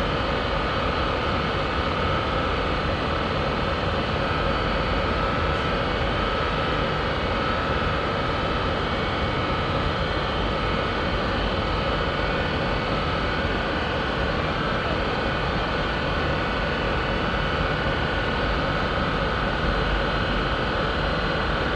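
A steady mechanical drone with a constant hum, holding the same level and pitch throughout.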